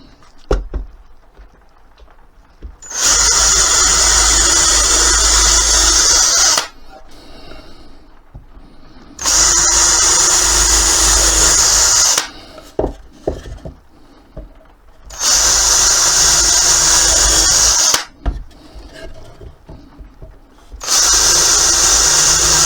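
Power drill with a 4 mm bit boring four holes through wood: four steady runs of about three to four seconds each, with knocks and small clatter between them as the workpiece is moved.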